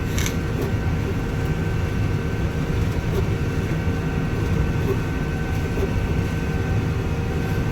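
Combine harvester running steadily while cutting soybeans, heard from inside the cab: a low rumble with a few constant whining tones over it and a brief click just after the start.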